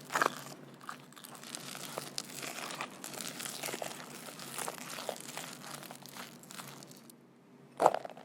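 Crinkling and rustling handling noise that goes on for about seven seconds, then stops; a single sharp knock follows near the end.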